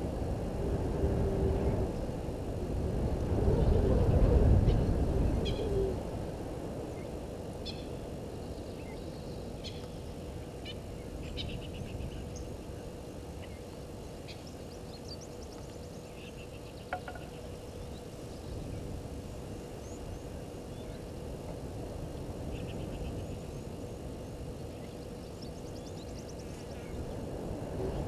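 A vehicle engine rumbles for the first several seconds, loudest about four seconds in, then fades away. After that, birds give short high chirps and a few quick trills on and off over a faint steady hum.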